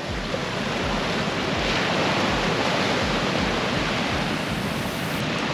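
Small surf washing onto a sandy beach, a steady rushing hiss, with wind buffeting the microphone in low, irregular rumbles.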